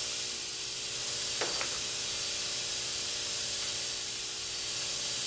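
Steady hiss with a faint low hum: machine-shop room tone, no machine running, with one faint tick about a second and a half in.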